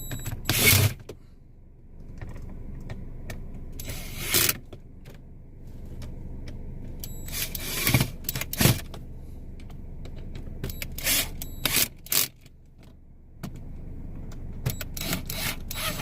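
Hand work on a car's dashboard as the radio's mounting screws are tightened: short clatters and scrapes of tools and plastic trim, coming a few seconds apart over a steady low rumble.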